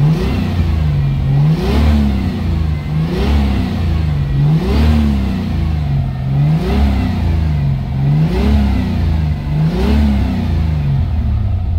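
Lexus IS300's turbocharged 2JZ-GE inline-six revved with light throttle (barely gassing it, about 15 to 20% throttle), rising and falling about six times, roughly every one and a half to two seconds. The engine is running on an AEM V2 standalone ECU that still needs tuning.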